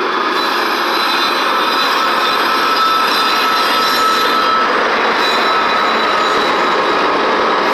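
Loaded freight train passing close by as its rear distributed-power locomotive, a GE ES44DC, rolls past. The loud, steady sound of steel wheels on rail carries thin, high squealing tones, the strongest of which holds for a few seconds and then fades.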